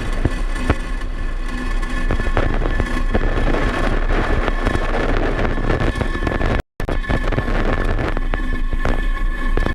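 Falcon 9 rocket climbing after liftoff, its nine Merlin 1D engines giving a loud, continuous crackling rumble heard from the ground. The sound drops out for a split second about two-thirds of the way through.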